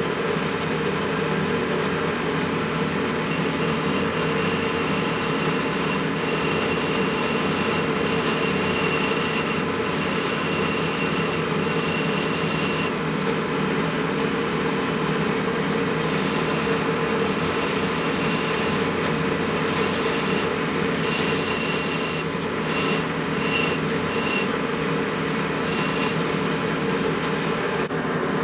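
A power tool running steadily while abrading the workpiece, a scraping rub with a faint high whine that comes and goes as the work is pressed on and eased off.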